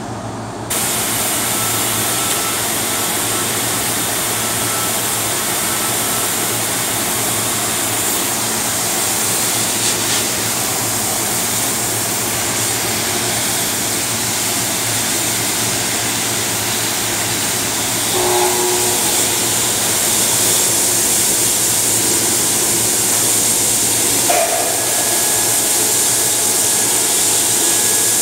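Steady loud hiss of a hand torch cutting steel plate, starting abruptly about a second in.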